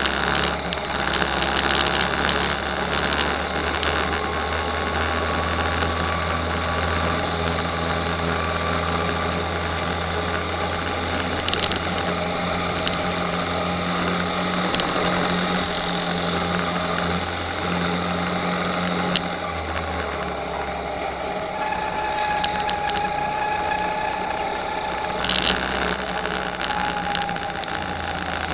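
Go-kart engines running steadily under way, heard from onboard a kart following others around the track, with a slowly shifting engine pitch and a few brief knocks.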